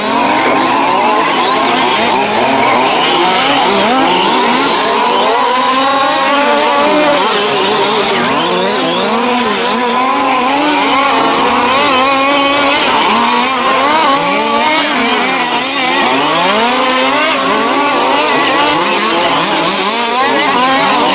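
Several 1:5-scale petrol RC cars racing at once, their small two-stroke engines overlapping and revving up and down continuously as they accelerate and brake.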